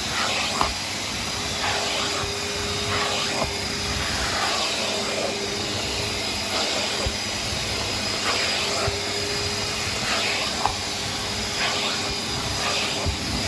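Numatic George wet-and-dry vacuum cleaner running steadily, a constant hissing motor noise, with a few sharp clicks along the way.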